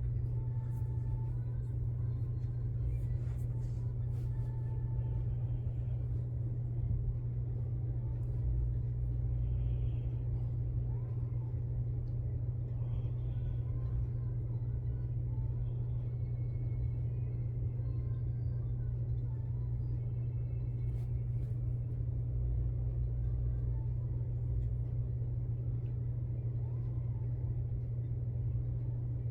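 A steady low hum runs throughout. Over it come a few faint, short, high whimpers or squeaks from a senior chihuahua in her sleep, about ten and thirteen seconds in.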